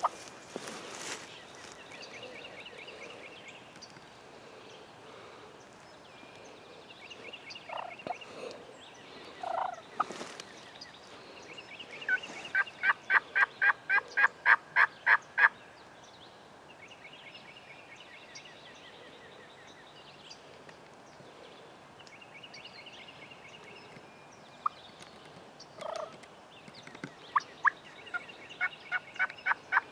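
Wild turkeys calling close by: two long runs of loud, evenly spaced yelping notes, about three to four a second, one in the middle and one near the end, with softer short runs of notes and a few brief lower calls between.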